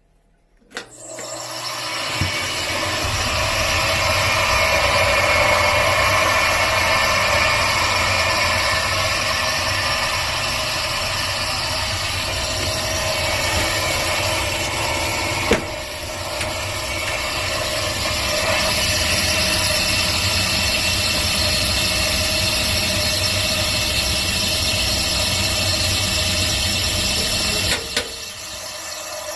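Old-style kitchen range hood fan switched on with a click, its motor spinning up and then running loud and steady with a squealing 'kyuru-kyuru' whine over the rush of air. This is the abnormal noise of a failing range hood that also draws poorly. Sharp clicks sound about halfway through and near the end.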